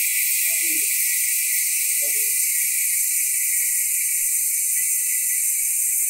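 Mountain bike's rear freehub buzzing as the wheel spins freely on its own: a loud, high, steady ratcheting hiss, the 'chainsaw' sound of a loud-engagement hub.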